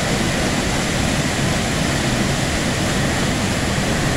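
Waterfall rushing steadily, a loud, even wash of water noise.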